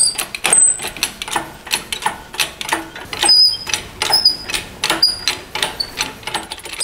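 Engine crane and the door hanging from it being worked: repeated sharp metallic clicks and short squeaks, about two a second, turning into a quicker run of light ticks near the end.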